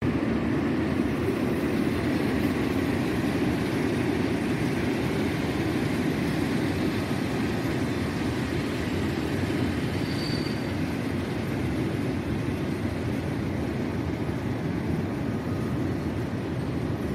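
PKP Intercity passenger train crossing a steel truss railway bridge: a steady, dense rumble of the carriages running over the span, easing slightly toward the end.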